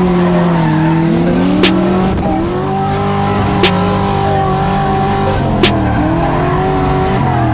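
Drift car engine held at high revs, its pitch shifting and sliding, with tyre squeal as the car slides sideways. Background music runs underneath, with a sharp hit about every two seconds.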